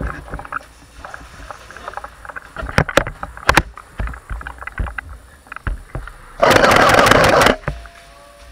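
Scattered knocks and steps of a player moving with gear, then about six seconds in a loud burst of rapid clicks lasting just over a second: an airsoft gun firing full-auto.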